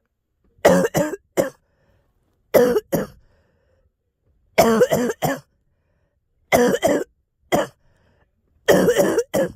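A girl coughing in five short fits about two seconds apart, each fit made of two or three coughs.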